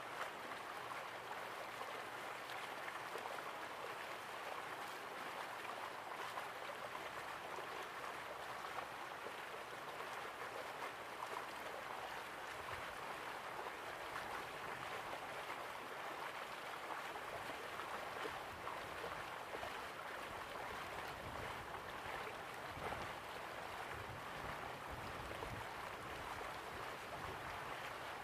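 Steady rush and splash of sea water as a wire-mesh fish trap is hauled up beside a boat, with low rumbling bumps coming in during the second half.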